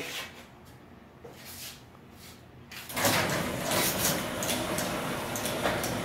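Sectional garage door closing under a LiftMaster 8355 belt-drive opener. A steady rumble of the door and opener starts about three seconds in, with faint clicks.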